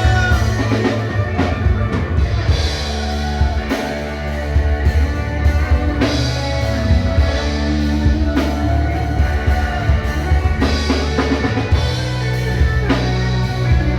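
Church worship band playing a slow instrumental passage. Drum kit and guitar sound over sustained bass notes that shift every couple of seconds.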